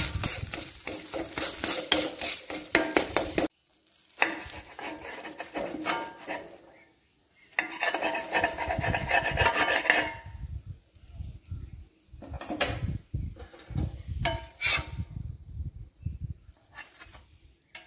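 Flat spatula scraping and clattering on a dosa tawa as an egg dosa is folded and lifted. The scraping comes in short spells separated by pauses, with an abrupt cut about three and a half seconds in.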